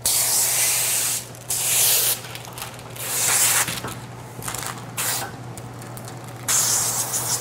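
Hand spray wand on a hose spraying slip solution onto window tint film in about five short hissing bursts, with a steady low hum underneath.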